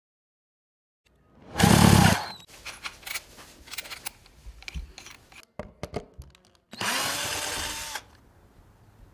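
Electric drill running in two short bursts, the first loud and under a second long, the second about a second long, with scattered clicks and knocks of handling between them.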